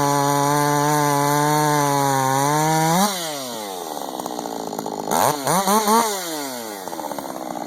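Husqvarna 562XP chainsaw running flat out at steady high revs. About three seconds in it revs up sharply and then drops off as the throttle is released. It is then blipped three times in quick succession before settling back to idle.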